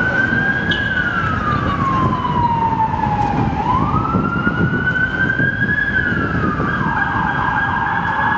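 Emergency vehicle siren wailing, its pitch sweeping slowly down and then rising again in long cycles, over a steady rumble of city street traffic.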